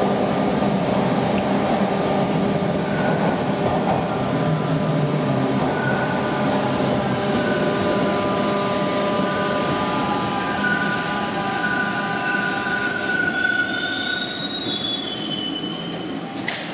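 Toronto subway train heard from inside the car as it pulls into a station: steady rumble of wheels on rail, then a whine that falls in pitch as the train brakes to a stop. A single click comes just before the end.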